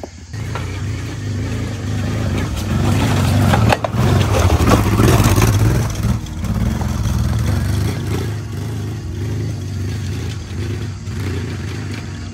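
An adventure motorcycle's engine revs hard under heavy throttle as it climbs a steep, rough uphill. It is loudest a few seconds in and then eases off, with a sharp knock just before the loudest part.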